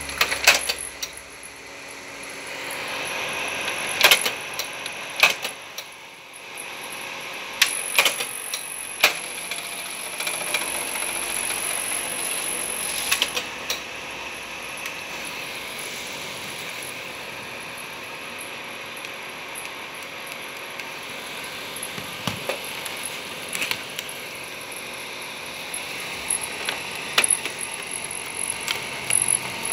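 Kodak Ektapro 3000 carousel slide projector's mechanism and slide tray clicking and clunking, with several sharp clicks in the first half. Then a steady hum runs under lighter clicks near the end.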